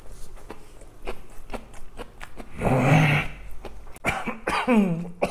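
A man chews something crunchy, then coughs once, loudly, about halfway through and lets out a falling groan near the end. It is a reaction to the burn of a raw, very hot Korean green chili (noji ttaengcho).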